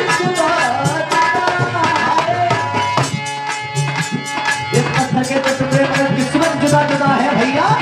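Indian folk music: a hand drum struck in a quick, steady rhythm under a held melody line.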